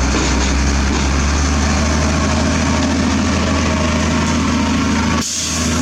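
Diesel engine of a Sany SR150C hydraulic rotary drilling rig running steadily with a deep, constant hum. The low hum drops out briefly about five seconds in, then returns.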